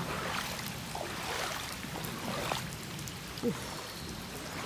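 Wellington boots wading through ankle-deep floodwater, each step splashing and sloshing. A short falling squeak sounds about three and a half seconds in.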